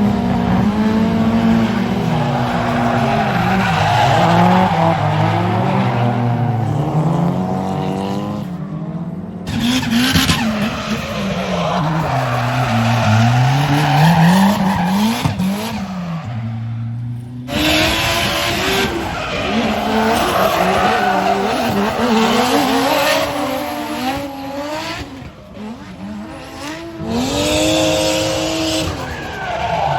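Drift cars at full throttle, engine notes revving up and falling repeatedly over the hiss and squeal of sliding tyres. The sound cuts abruptly twice, about 9 and 17 seconds in.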